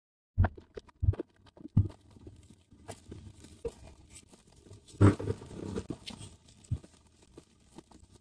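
Soft plastic packs of wet wipes being set down and stacked on a shelf: a series of dull thumps with crinkling of the plastic wrappers between them. The loudest thump comes about five seconds in.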